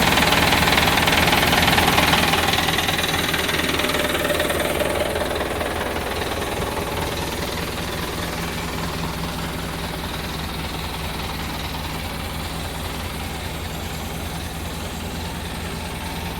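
Engine just after starting, running fast and loud at first, then settling over the first several seconds into a steady idle with a fast, even pulse.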